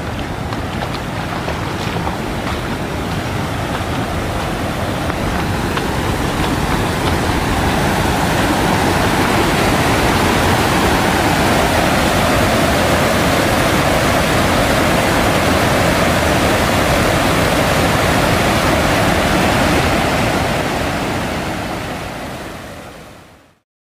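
Muddy floodwater pouring over the edge of a grassy earth bank in a wide cascade: a steady loud rushing that builds over the first half and fades out near the end.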